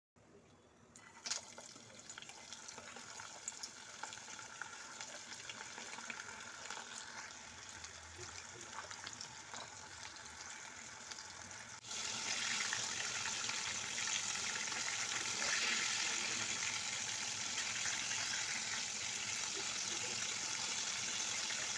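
Minced-mutton kababs frying in hot oil in a pan: a faint crackling sizzle with scattered pops, after a single click just after the start. About halfway through it turns into a louder, steady sizzle.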